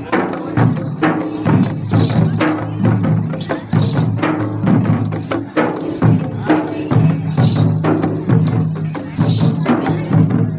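Bastar tribal dance music: large two-headed barrel drums beaten in a steady, repeating rhythm, with metallic jingling above it.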